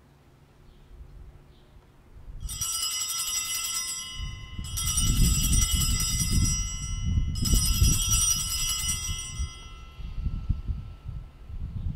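Altar bells rung in three peals of about two seconds each, marking the elevation of the chalice at the consecration. A low rumble runs underneath from the second peal on.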